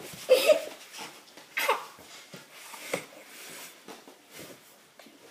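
Children straining and breathing hard during an arm-wrestling match, with two short vocal outbursts in the first two seconds and quieter effortful breaths after.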